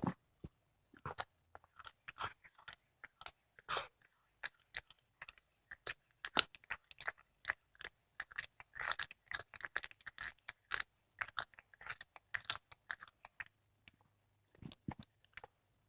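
Domestic cat chewing a squirrel: irregular wet crunches and cracks as it bites through bone, coming fast in the middle and thinning out near the end.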